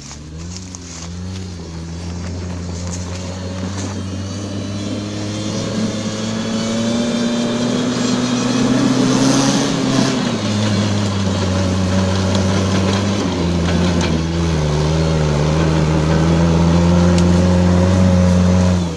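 Off-road 4x4's engine held at high, steady revs to drive its hydraulic winch. The pitch climbs about six seconds in, drops back near ten seconds, rises again a few seconds later, then falls away suddenly at the end.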